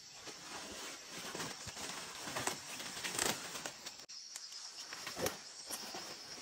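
Squash vine leaves rustling and stems snapping as shoots are picked by hand, in short irregular crackles. From about four seconds in, insects trill steadily in the background.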